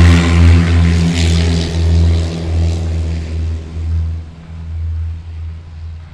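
Light propeller aircraft engine running at low power, a low droning hum with a pulsing beat that fades steadily away.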